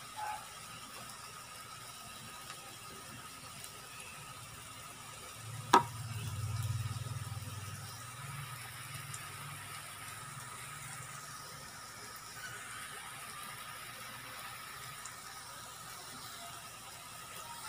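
Saba bananas frying in oil in a pan, with a steady faint sizzle. About six seconds in there is one sharp click, followed by a brief low rumble.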